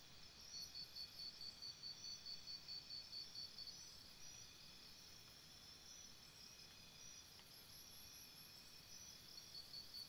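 Faint chorus of rainforest insects: several steady high-pitched buzzing tones, with one insect calling in a rapid pulse, about four pulses a second, that stops a few seconds in and starts again near the end.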